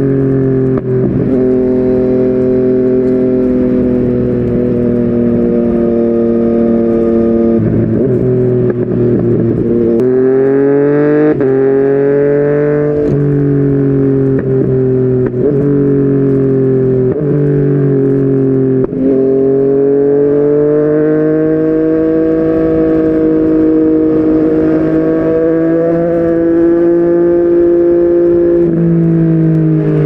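Yamaha MT-09 inline-three engine through a Yoshimura R55 slip-on exhaust, ridden under acceleration: the pitch climbs and then drops abruptly at each upshift, several times in the first twenty seconds, before settling into a steadier, slowly rising pull.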